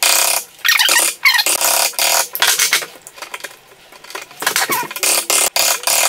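Hammer striking a wood chisel again and again, chopping out the shallow recess for a door latch plate in the edge of a timber door. Sharp knocks in quick clusters, a brief lull a little past halfway, then another run of blows.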